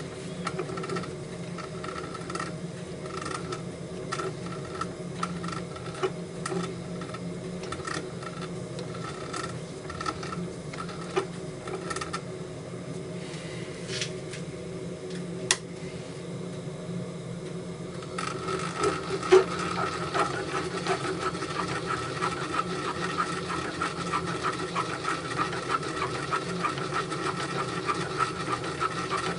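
Bench drilling-milling machine running steadily, with occasional sharp clicks; about two-thirds of the way through it gets louder and its higher tone grows stronger.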